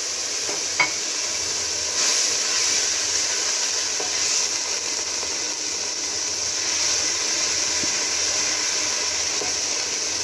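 Water hitting hot oil with fried garlic, cumin and mustard seeds in an aluminium pot, sizzling and hissing steadily. A single sharp click about a second in.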